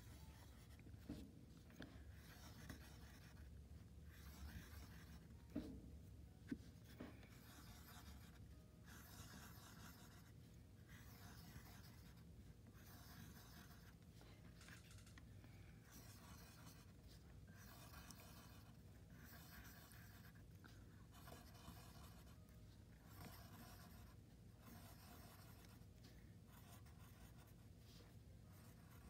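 Pointed wooden stick scratching spiral lines through a layer of oil pastel on paper: faint, repeated short scratching strokes, with a few soft knocks in the first seven seconds.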